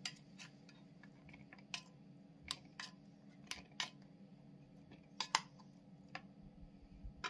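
A metal spoon scraping and clinking in an opened tin can while canned sweetcorn is scooped into a plastic bowl: about a dozen light, irregular clicks.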